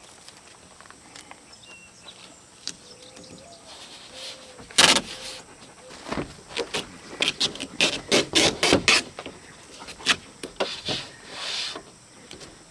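Gaffer tape being pulled off the roll and torn in strips, in short rasping rips. The loudest rip comes about five seconds in, a quick run of them follows, and a longer pull comes near the end.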